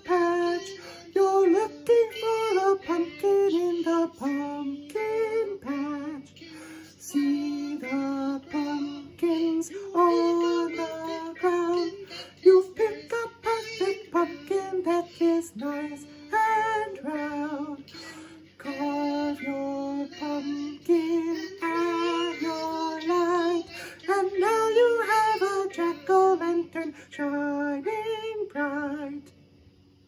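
A simple children's song sung as a canon (round): voices singing the same melody at staggered entries, so that two lines overlap. The singing ends near the end.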